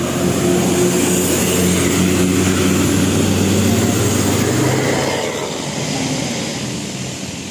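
A bus's engine runs loudly as the bus passes close. It swells about half a second in, holds for several seconds, then eases off after about five seconds.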